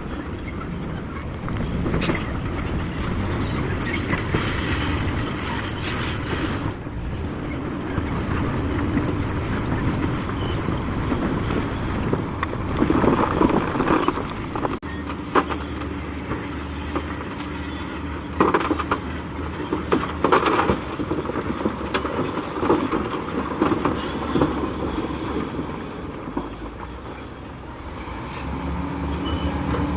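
Bulldozer working: a diesel engine running steadily, with louder bursts of metallic squealing and clanking partway through.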